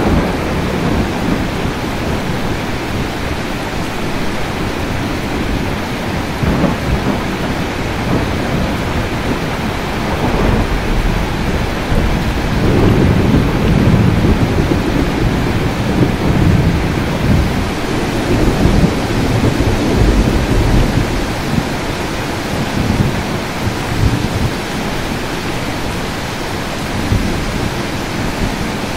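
Steady rain falling with rolling thunder; the thunder builds about ten seconds in and rumbles on and off for about ten seconds, loudest around the middle, then eases back to rain.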